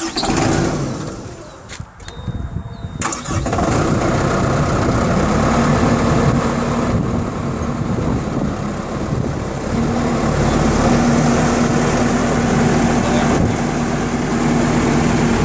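Caterpillar 311C excavator's diesel engine starting, catching about three seconds in and then running steadily.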